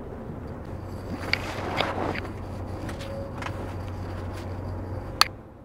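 Heavy truck's diesel engine idling as a low steady hum that fades out about five seconds in, with scattered knocks and scuffs of handling and one sharp click near the end.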